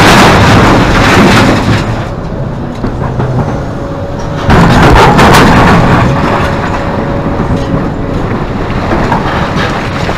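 Hidromek 390 excavator bucket dumping a load into a truck bed: two heavy crashing rumbles about four and a half seconds apart, each lasting over a second, over the machine's steady engine hum.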